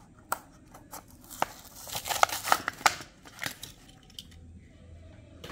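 Clear plastic blister pack of a die-cast toy car being pried and torn off its cardboard backing card: a run of sharp plastic crackles and clicks, densest about two to three seconds in.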